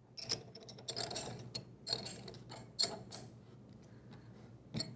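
Metal wrenches clicking and scraping on the body bolts of a three-piece stainless ball valve as they are tightened, in a handful of irregular clinks.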